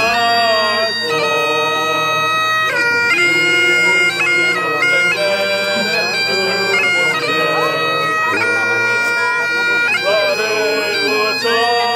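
Several Great Highland bagpipes playing a tune together over their steady drones. A man's voice sings along near the start and again near the end.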